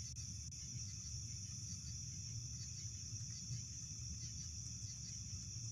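Steady night chorus of crickets, an unbroken high-pitched trill, over a low steady hum.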